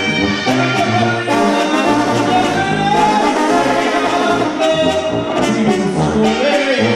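Mexican brass banda playing live: trumpets and trombones sounding loudly together in a continuous ensemble passage.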